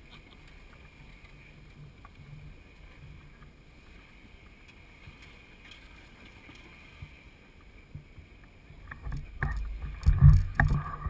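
Lifted rock-crawling 4x4 truck's engine running low and quiet as it creeps over boulders, then revving in loud bursts with sharp knocks from about nine seconds in as it powers up the rocks.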